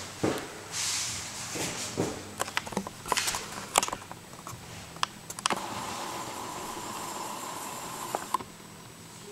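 Camera handling knocks and clicks, then the camera's zoom motor whirring steadily for about three seconds as it zooms in. The whirring stops abruptly.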